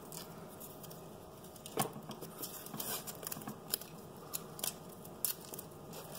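Light, scattered clicks and taps from handling a steel tape measure against a glass subway tile, over a quiet background hiss.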